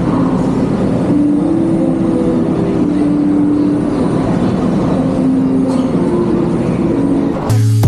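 Steady, loud din of a busy eating hall: a wash of noise with indistinct voices and faint held tones. Music with a strong bass line cuts in abruptly near the end.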